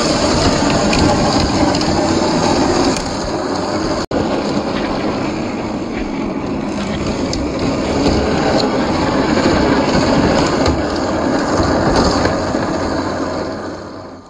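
Scale RC crawler with a 540 brushed motor running off-road, its motor and drivetrain whirring and its tyres grinding over dirt and gravel. The sound drops out for an instant about four seconds in and fades out near the end.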